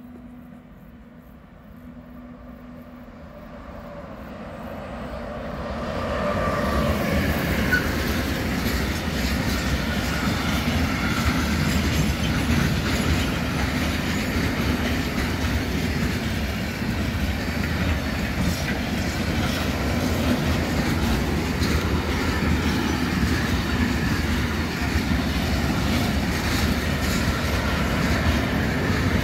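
A freight train of container and tank wagons passing, growing louder over the first several seconds as it draws near, then a steady, loud noise of its wheels running over the rails.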